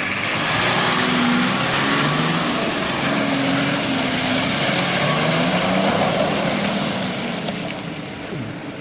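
Four-wheel-drive SUV's engine pulling along a muddy track, its note rising and falling, under a loud, steady rushing noise. The sound fades near the end as the vehicle draws away.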